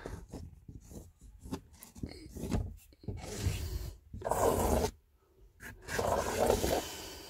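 A hand rubbing and pressing across a film-covered aluminium composite panel to bed it onto glue, in several irregular scraping strokes of about a second each.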